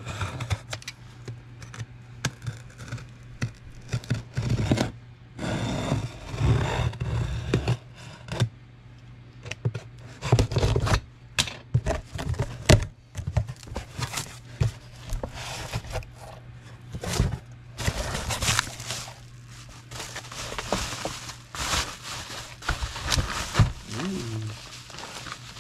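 A boxed set of aluminum valve covers being unpacked by hand: packaging torn and crinkled, with irregular scrapes and knocks as the parts are handled.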